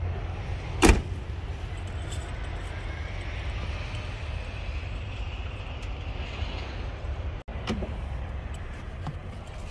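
A pickup truck door shuts with one sharp knock about a second in, followed by a steady low rumble of vehicle engines and traffic, with a few light knocks near the end.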